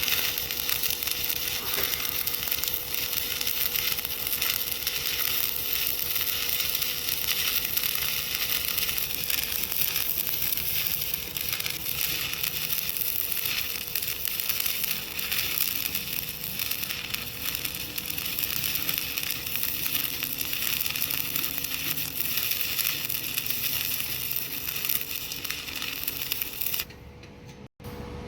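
Stick-welding arc crackling steadily over a constant hum, then cutting off abruptly about a second before the end as the arc is broken.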